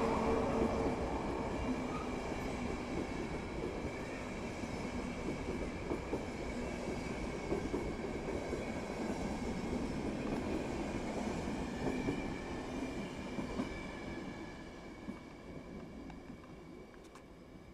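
Passenger train coaches rolling past on the track, the wheels rumbling and clicking over the rail joints. The noise fades steadily as the train draws away.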